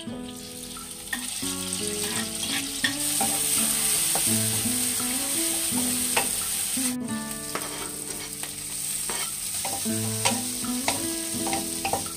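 Chopped garlic, chilies and tomato sizzling in oil in a nonstick wok as a spatula stirs them, with scattered sharp taps of the spatula on the pan; the sizzle grows louder about three seconds in. Background music plays over it.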